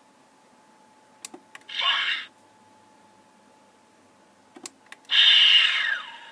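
Sound effects from a Diamond Select Klingon Bird of Prey model's small speaker: two button clicks, then a short hissing electronic blast, and later two more clicks and a longer blast that sweeps down in pitch. A faint steady electronic tone runs underneath.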